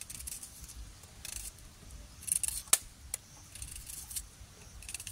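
Short, crisp scraping and rustling handling sounds in several separate bursts, with one sharp click a little under three seconds in.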